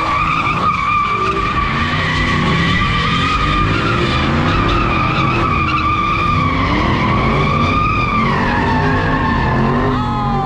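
Ford Mustang doing donuts: its rear tyres squeal steadily while the engine revs rise and fall underneath. The squeal drops in pitch about eight seconds in.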